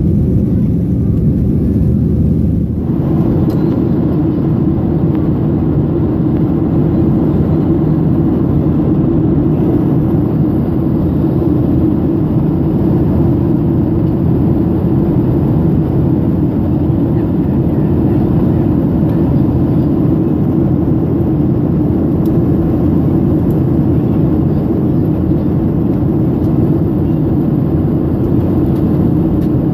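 Boeing 737-800 in flight, heard from the cabin: the steady noise of its CFM56-7B engines and the air rushing past the fuselage. About three seconds in, a steady hum gives way to a broader, even rushing sound that then holds.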